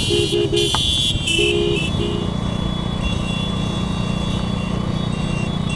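Vehicle horns sounding in short repeated blasts over the first two seconds, then a steady engine hum and traffic noise.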